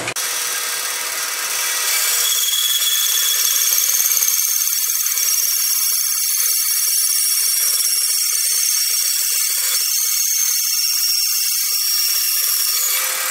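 An old bandsaw running, its blade cutting through a chunk of wood: a steady, high-pitched cutting noise that sets in about two seconds in and eases off near the end.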